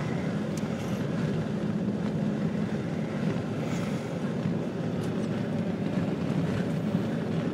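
Steady engine and road noise inside a moving vehicle's cabin.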